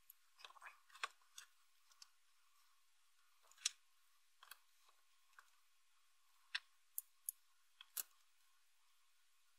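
Near silence broken by faint, scattered light clicks and taps as the 18650 cells are handled and hot-glued together, with the sharpest clicks about four seconds in and a quick cluster near the end.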